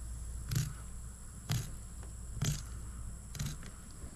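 Tip of a fillet knife clicking down a longnose gar's backbone, four short clicks about a second apart; the clicks tell that the blade is riding on the backbone, which is how the spine is found for the fillet.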